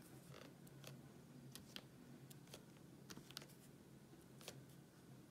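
Faint, scattered small clicks of square resin diamond-painting drills being pressed into the sticky canvas with a drill pen, the crunch of each drill going in.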